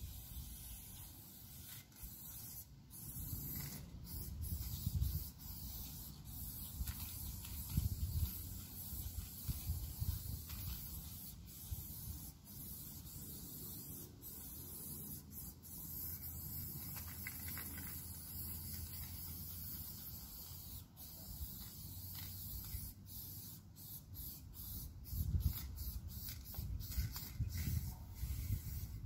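Aerosol spray-paint can hissing in long passes, with brief pauses between strokes. Bursts of low rumble come and go underneath.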